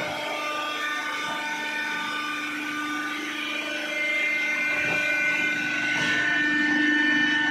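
Hydraulic cardboard baling press running: its electric motor and hydraulic pump give a steady whine that grows somewhat louder about halfway through.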